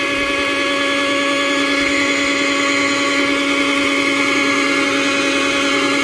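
Small 12-volt blower motor for a tote hot tub's air bubbler, running with a steady, even hum and whine; it is noisy. The air is not yet bubbling up through the water, which puzzles the owner.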